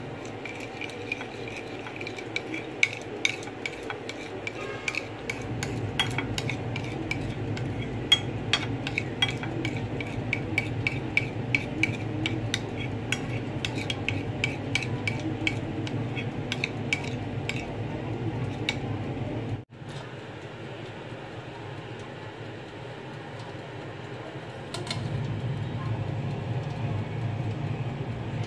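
A metal spoon stirring thin batter in a ceramic dish, tapping and scraping the dish at about three taps a second with a light ring, until it stops at a cut about two-thirds of the way through. A steady low rumble runs underneath.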